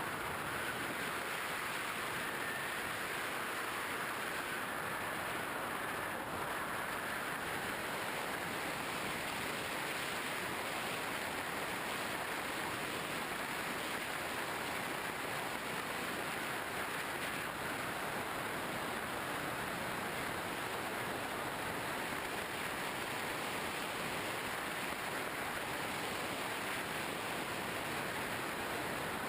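Steady rushing wind noise from airflow over a GoPro Hero 2 mounted on a Skywalker RC plane in flight, even and unchanging with no clear motor tone.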